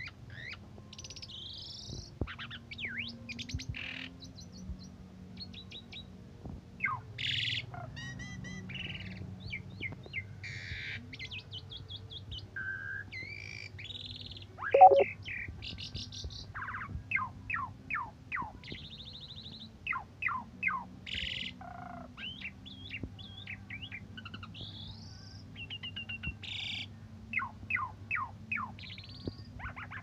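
Asian pied starling (jalak suren) singing a long, varied song of whistles, chirps and quick falling notes. About halfway through it gives one loud, harsh call.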